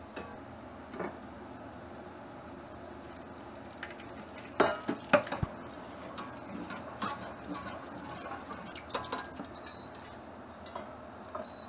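A metal ladle knocking and scraping against a wok and a stainless steel bowl as oil is swirled around the wok and ladled back, in scattered clinks with the loudest knocks about five seconds in.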